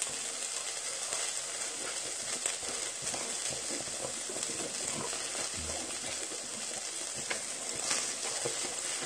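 Wild boar meat and fat sizzling steadily on a stone grill plate, with scattered crackles.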